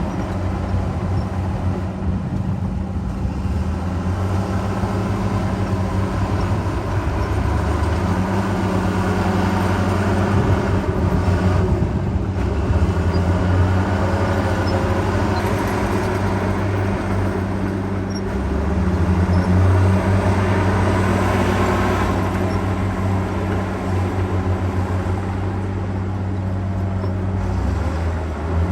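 Heavy diesel engine of earthmoving equipment running steadily, its engine note shifting up and down a few times as the load changes.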